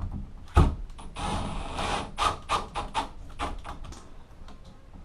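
Hard parts being handled and fitted onto a shower valve: a sharp knock, then a scraping slide with a faint high squeak, then a run of clicks and knocks.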